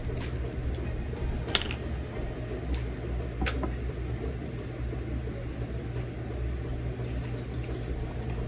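Seafood mukbang eating sounds: quiet chewing and handling of crab and mussel shells, with a few sharp shell clicks (the loudest about a second and a half in), over a steady low hum.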